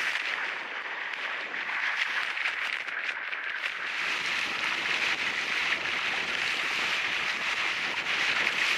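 Steady rushing noise of wind and water around a kite-pulled kayak sailing fast, with a fine crackle of spray.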